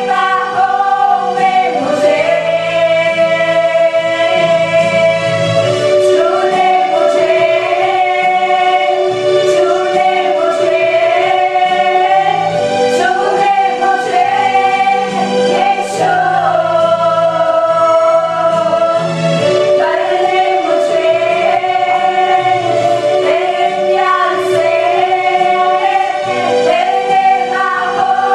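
A group of voices singing a Christian praise and worship song together, in long held phrases.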